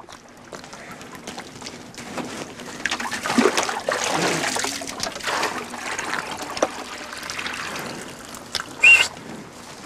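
Liquid trickling and splashing among scattered small knocks, growing louder in the middle, with one short, sharp high-pitched sound near the end.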